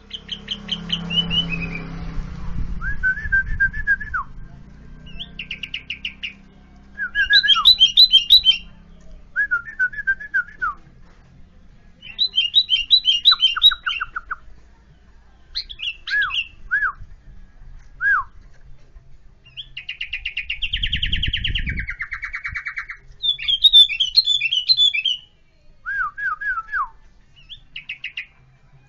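Yellow-vented bulbul (trucukan) singing: short phrases of quick chirping notes, repeated every second or two with short gaps, and one longer, harsher sound about two-thirds of the way through. It is a training recording of the song, meant to be played to caged bulbuls that are mute or reluctant to sing.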